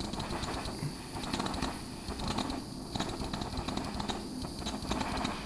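Small handheld butane torch sputtering, with irregular crackling clicks and short puffs of hiss as it spits flame, because it was just refilled with gas.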